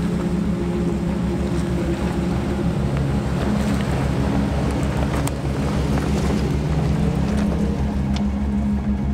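A vehicle engine running steadily while under way, with a slight change in pitch about three seconds in, wind noise and scattered light ticks.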